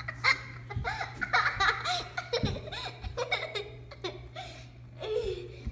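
A young child laughing and squealing in short bursts over a low steady hum.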